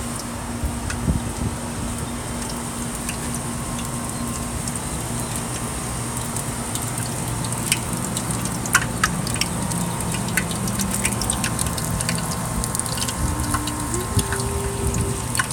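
Cooking oil sizzling in a pan, with scattered sharp crackles and pops that come more often after about halfway, over a steady low hum.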